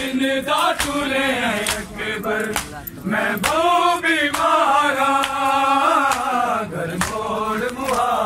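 Men's voices chanting a Punjabi noha, a Muharram lament, in a drawn-out melody. Sharp slaps of chest-beating (matam) cut through at intervals of about a second.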